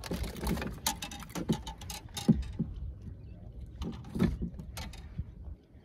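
Close-up handling noise from working a swallowed hook out of a small redfish with hemostats: irregular clicks, taps and rustles.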